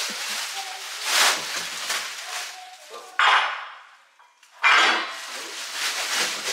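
Plastic film and bubble wrap rustling and crinkling in three loud bursts as it is pulled off a crib's metal frame, with light clinks of the metal frame being handled.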